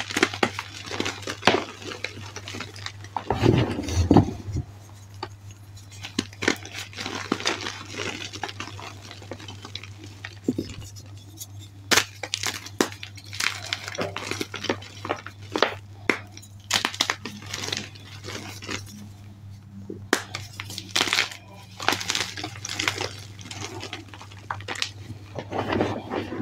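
Hands crushing and crumbling blocks of reformed and fresh gym chalk into loose powder: a stream of dry crunches and crackles coming in bunches, with the heaviest, deepest crunch a few seconds in. A steady low hum runs underneath.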